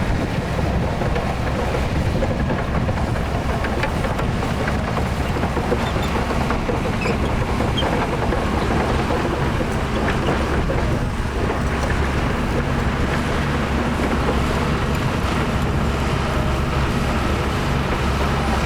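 Diesel engine of heavy earthmoving machinery running steadily under load, its sound sitting mostly low, with a little wind on the microphone.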